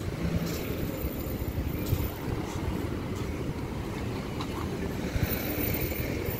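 Street traffic on the road alongside: a steady low rumble of passing cars and motorbikes.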